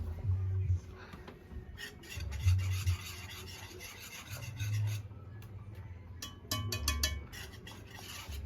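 Limes being rubbed by hand against a hard surface, making a rasping, scraping sound in several spells, with low handling thumps and a few sharp clicks.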